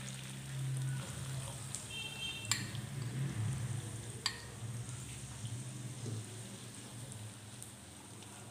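Chopped onions sizzling as they fry in hot oil and butter in a nonstick pan, stirred with a wooden spatula, with two sharp taps about two and a half and four seconds in.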